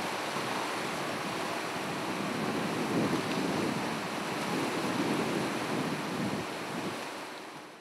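Steady rush of wind and choppy sea water, with wind buffeting the microphone and the sound swelling a little now and then; it fades out near the end.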